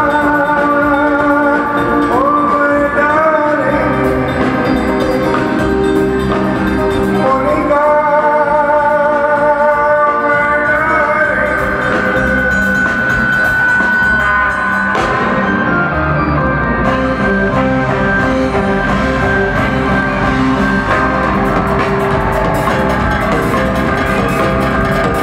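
Live band playing a song with singing, heard from the audience in a large concert hall. A long high note is held through the middle.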